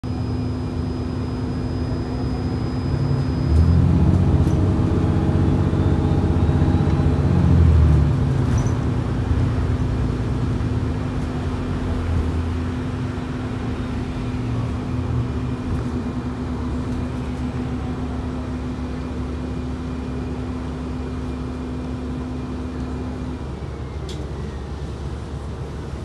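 City bus engine and drivetrain heard from inside the passenger cabin, running with a steady low rumble. It grows louder from about three and a half to eight seconds in, and a steady hum, one of the weird noises this bus makes, runs under it until it cuts off near the end.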